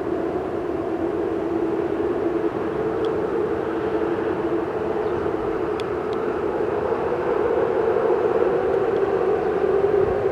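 Steady hum of traffic crossing a bridge: a constant low drone that holds one pitch throughout, with a few faint ticks about halfway through.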